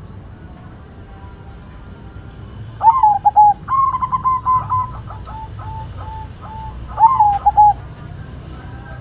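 White zebra dove (perkutut) cooing. A short coo phrase about three seconds in leads into a run of quick, evenly repeated notes, and another phrase comes near the end.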